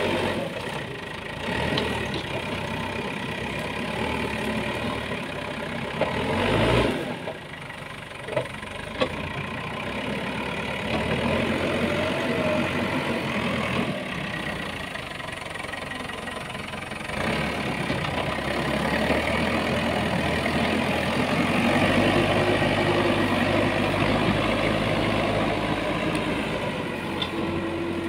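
Manitou backhoe loader's diesel engine running under work as the front bucket pushes and lifts brush, its sound swelling and easing with the load. Two short sharp knocks come about eight and nine seconds in.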